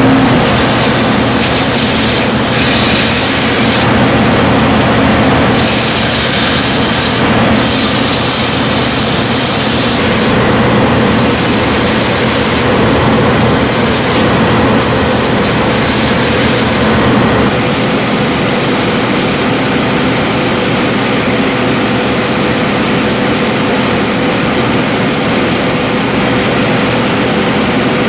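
Sutton shoe finishing machine running, its sanding wheels grinding the edge of a Vibram ripple sole: a steady motor hum under a loud, hissing grind. The high hiss breaks off briefly several times.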